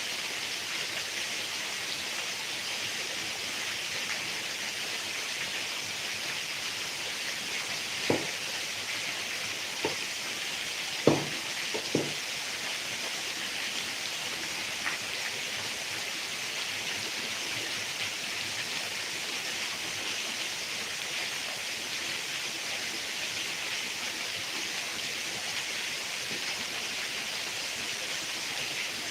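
Heavy rain falling in a steady, even hiss. A handful of short, sharp taps stand out about a third of the way in.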